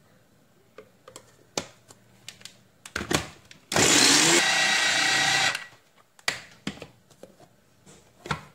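Moulinex electric mini chopper running in one burst of about two seconds, blending boiled potato and mayonnaise into a smooth sauce. Short plastic knocks and clicks come before and after, as the motor top is fitted onto the bowl and lifted off again.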